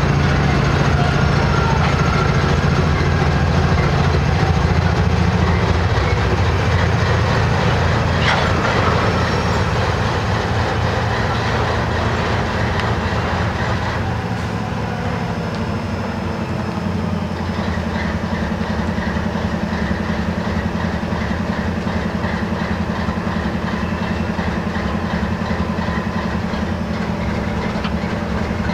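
Norfolk Southern welded rail work train on the move: a steady diesel engine drone and rail noise, easing slightly about halfway through.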